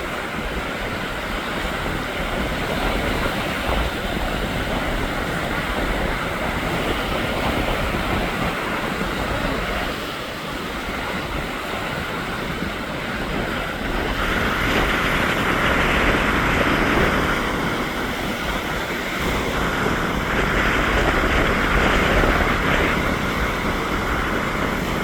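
Lake waves breaking on the shore in strong wind: a continuous wash of surf that swells louder twice, about halfway through and again near the end, over a steady low rumble.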